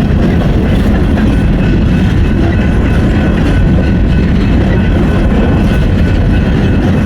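Norfolk Southern train's cars rolling past at close range: a loud, steady rumble of wheels on rail, with faint thin high tones ringing above it.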